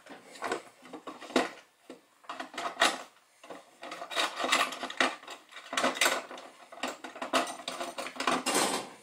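Rummaging among small hard objects such as tools: irregular clicks, clatters and scraping rubs, growing busier in the second half.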